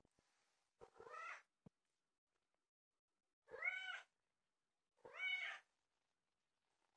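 A ginger-and-white domestic cat meows three times. Each meow lasts about half a second and rises then falls in pitch, and the last two are louder than the first.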